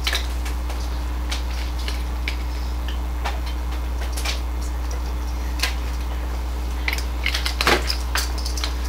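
Classroom room tone: a steady low hum, with small clicks and taps scattered through it that come more often near the end.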